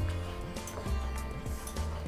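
Background music with a steady bass line and light, evenly spaced percussion.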